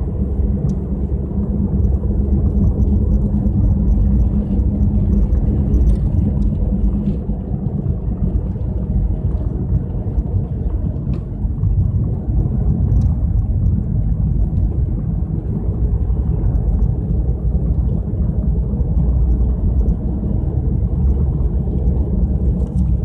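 Steady low rumble inside a car's cabin while driving at about 60 km/h on a snow-covered highway: engine, tyre and wind noise.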